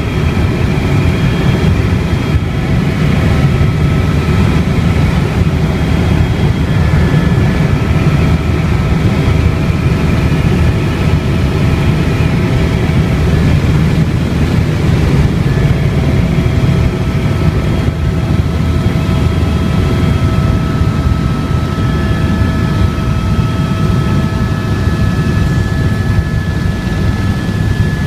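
Helicopter running steadily: a loud low rumble with several faint, steady whining tones above it.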